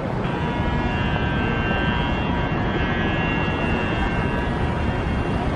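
City street traffic noise: a low rumble with a steady high whine of several tones over it, which fades out near the end.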